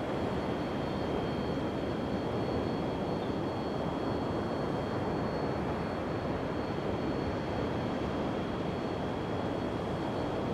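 Steady, even rumbling noise with two faint, constant high whines over it, like heavy machinery running.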